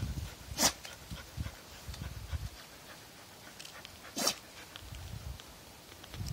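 A dog close to the microphone giving two short, sharp puffs of breath about three and a half seconds apart, over low rustling and brushing of tall grass.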